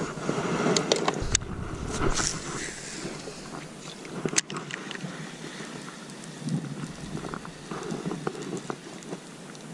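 Handling noise aboard a plastic fishing kayak: light knocks, rustles and water movement as the paddle is moved and the rod is taken up, with one sharp knock about four seconds in.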